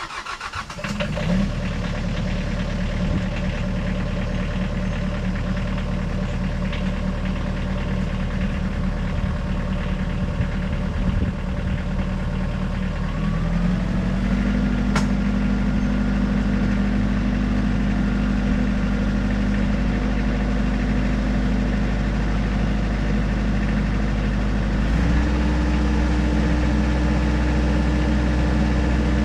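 An engine starts at the beginning and runs steadily. Its speed steps up twice, once near the middle and once near the end.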